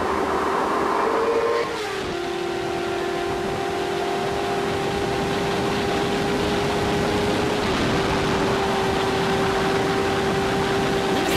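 Car engine pulling hard at speed, one steady high note that climbs slowly; it drops in pitch about two seconds in, as at an upshift, then climbs again, over steady road and wind rush.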